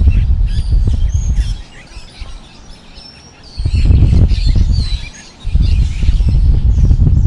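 Strong wind blowing in gusts, a loud low rumble that drops away for about two seconds a little over a second in and briefly again past the middle. Small birds chirp throughout.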